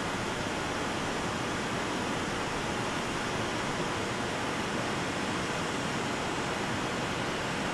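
Steady, even rushing noise with no distinct events: the background ambience of a large industrial shop building.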